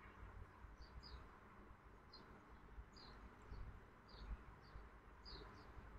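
Near silence: faint room tone with soft, short high chirps about once or twice a second.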